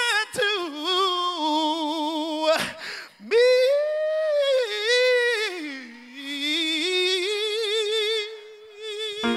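A man singing solo gospel a cappella: wordless runs that climb and fall, then long held notes with a wide vibrato, the last one held for about three seconds before breaking off near the end.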